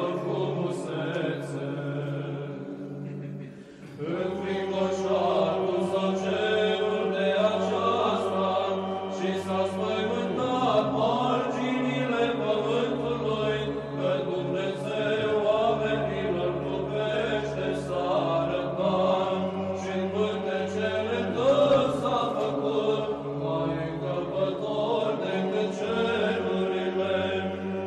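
Background music: Byzantine Orthodox chant, several voices singing over a held low note, with a short break in the singing about three seconds in.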